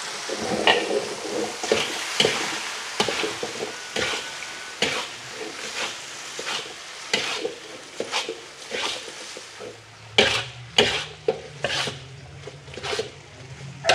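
Metal spatula scraping and knocking against an aluminium wok as instant noodles are tossed and stir-fried, with a light sizzle of the frying underneath. The scrapes come in quick irregular strokes, roughly one or two a second.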